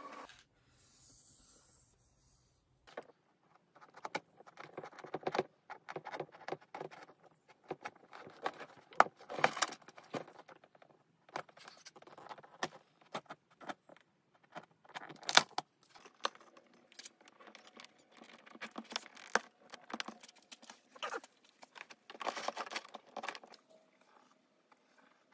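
A pointed hand tool scratching and scoring a circle into a painted prop surface: irregular scrapes and clicks with a few sharper ticks, starting a few seconds in.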